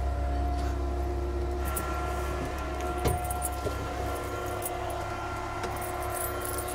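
Steady low machine rumble with a constant hum of several even tones over it, and a single sharp click about three seconds in.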